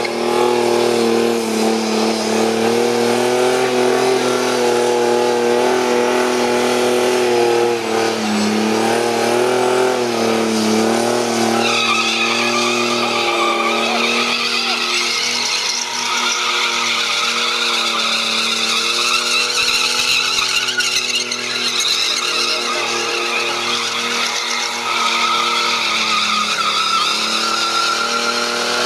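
Holden VN Commodore doing a burnout: its engine is held at high revs while the rear tyres spin and squeal, the revs wavering now and then. A higher, stronger tyre squeal comes in about twelve seconds in and carries on.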